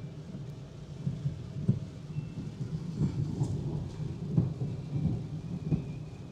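Rain hitting the roof and windscreen of a moving car, heard from inside the cabin, with irregular small knocks over a steady low rumble from the road.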